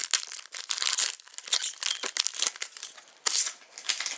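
Foil trading-card pack wrapper being torn open and crinkled in the hands, a dense run of irregular crackles that thins out near the end.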